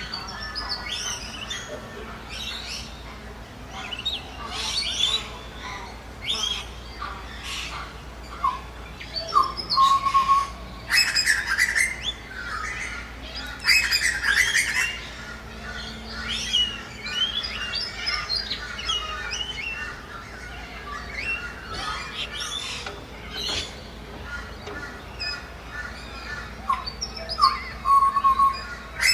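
Birds calling: loud, harsh squawks every few seconds over busy chirping and tweeting.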